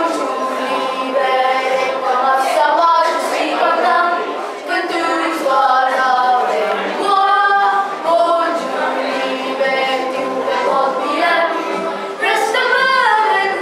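A group of voices singing a song together.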